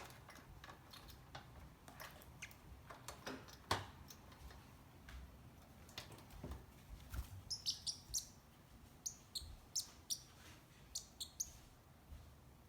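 Pacific parrotlet giving a run of short, high chirps in the second half, after a scatter of small clicks and taps.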